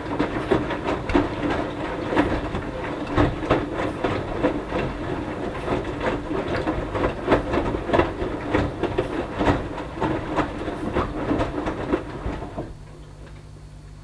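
Hoover Dynamic Next front-loading washing machine's drum tumbling a wet fleece throw during the wash, with water sloshing and the laundry dropping and splashing in irregular slaps. The drum stops turning near the end, leaving a quieter steady hum.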